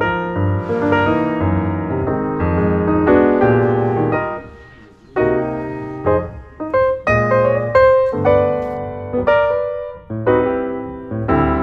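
Background piano music: struck notes and chords that ring and fade, with a brief lull about five seconds in.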